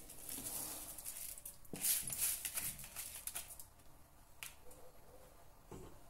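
Washed rice being tipped from a plastic colander into a pot of hot water: wet grains sliding and dropping in with scattered clicks and splashy rustles, loudest about two seconds in.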